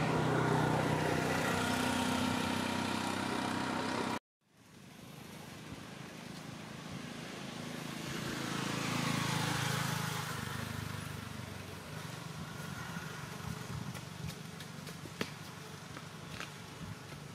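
Road traffic: motor vehicles running by, one growing louder and then fading away in the middle, over a steady low hum. The sound cuts out abruptly for a moment about four seconds in, and a few light clicks come near the end.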